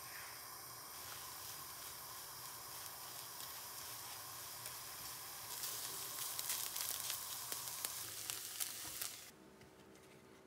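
Beaten eggs sizzling in butter in a nonstick wok while a spatula stirs and scrambles them. About five and a half seconds in the frying gets louder, with quick crackles and spatula clicks, and it stops abruptly about nine seconds in.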